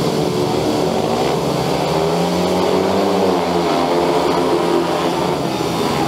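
Several speedway bikes, each with a 500cc single-cylinder methanol engine, racing on full throttle. Their engine notes rise and fall together as they power round the track.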